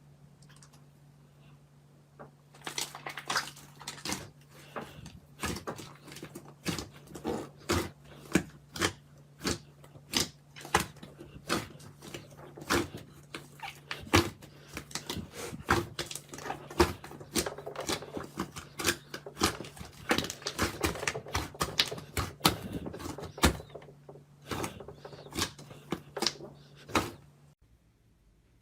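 Slime being squeezed and kneaded by hand, giving irregular sharp clicks and pops, several a second, that start about two seconds in and stop shortly before the end.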